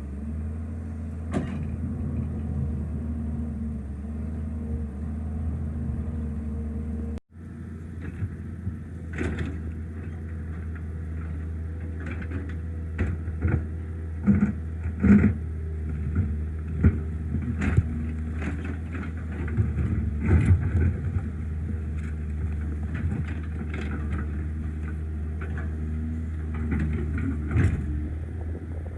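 Excavator diesel engine running steadily under load, with irregular sharp knocks and clunks of rock being broken and worked, most frequent in the second half.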